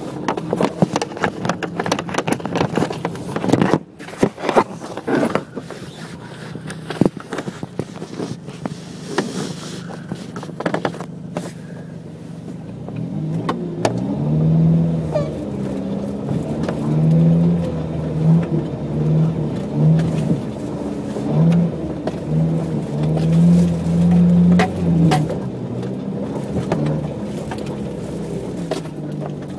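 Jeep Cherokee driving a rough, snowy lane: the engine runs steadily under a lot of knocking and clatter from the bumpy track. About halfway through, the engine starts revving up and down in repeated surges.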